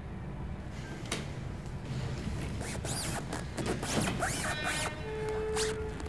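Clothing rustling with a few sharp rasps and knocks in the middle, then a single held note of film score near the end.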